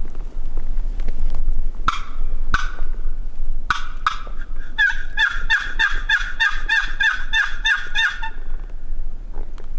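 Turkey calling: three sharp single calls, then a rapid, even run of about sixteen notes lasting some three seconds.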